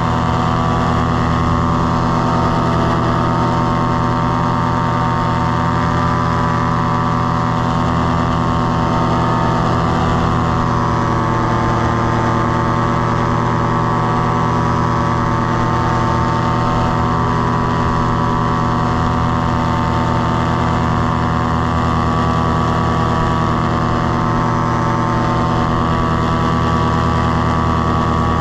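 Tandem paramotor trike's engine and propeller running at steady throttle in flight, a loud, even engine note that holds the same pitch throughout.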